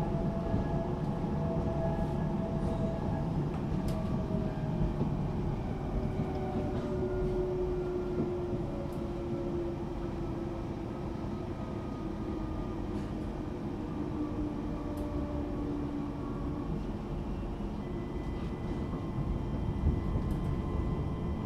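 Interior running sound of a Class 378 Electrostar electric train: steady rumble with the traction motors' whine falling slowly in pitch as speed drops, and a few faint clicks. A new steady higher tone sets in near the end.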